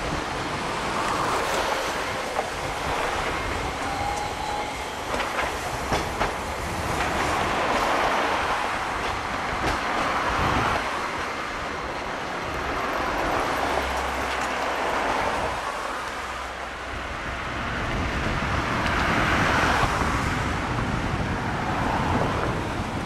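Hiroden low-floor articulated trams running past on street track: a steady rumble of steel wheels on rail, swelling and fading as the cars go by, with a few clacks over rail joints.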